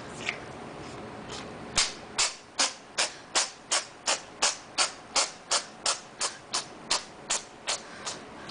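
A cat sneezing over and over in a rapid fit, about three short sneezes a second, growing weaker near the end.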